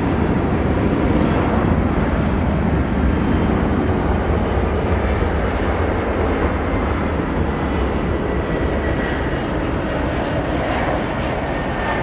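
Jet engines of a Boeing 767-300ER landing: a loud, steady roar that eases slightly toward the end, with a faint high whine in the latter half.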